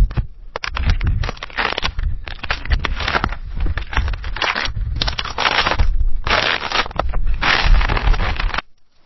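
Footsteps crunching through snow at a steady walking pace, about one step every two-thirds of a second, stopping suddenly near the end.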